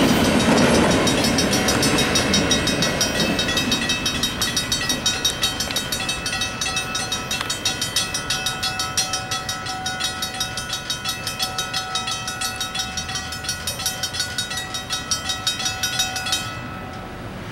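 An intermodal freight train rolling past on jointed track, loudest at first and fading as the last cars go by. A grade-crossing bell rings over it in a fast, steady rhythm and stops abruptly near the end.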